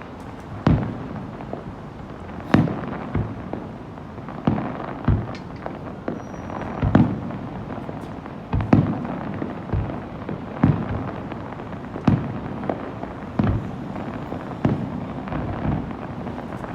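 Aerial fireworks bursting one after another, a sharp boom every second or so, each echoing briefly, over the steady hum of a crowd.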